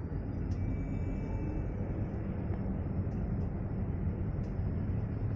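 Motorcade cars driving past with a steady rumble of engines and tyres, and no siren sounding.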